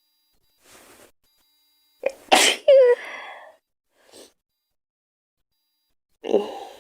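A girl sneezes: a faint breath in, then a loud, sudden sneeze about two seconds in that ends in a short voiced, falling note. Another loud burst of breath starts near the end.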